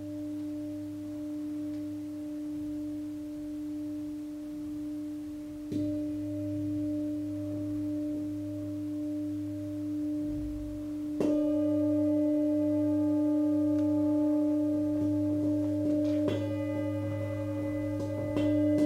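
Large hammered full-moon singing bowl, cast from seven metals, struck four times with a felt mallet. Its deep tone rings on between strikes with a slow wavering beat.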